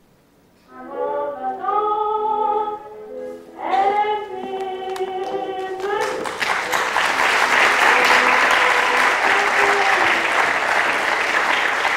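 Singing voices start about a second in; from about six seconds audience applause rises over the singing and continues.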